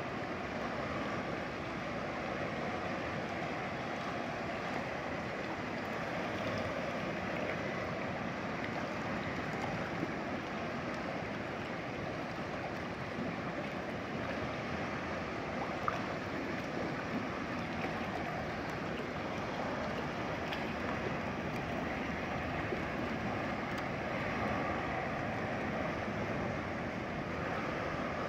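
Shallow river rushing steadily over rocks and riffles, with one brief click about halfway through.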